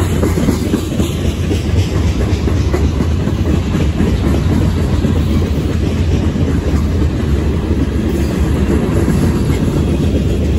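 Freight cars of a passing train, mostly centerbeam flatcars loaded with lumber, rolling by on steel wheels: a steady low rumble of wheels on rail with no let-up.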